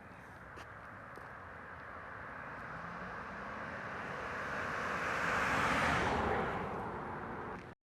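A vehicle approaching and passing by, its tyre and road noise swelling steadily for about six seconds and easing off just before it cuts out.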